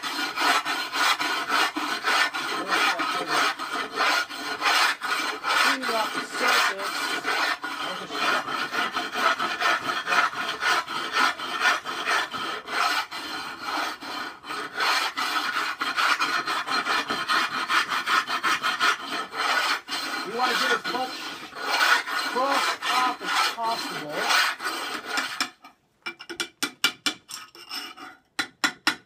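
Hand-held abrasive stone scrubbed hard back and forth across a ceramic kiln shelf, grinding off the crust of salt and ash left by a wood firing: rapid, continuous rasping strokes. Near the end the scrubbing stops and a few sharp taps of a hammer and chisel follow.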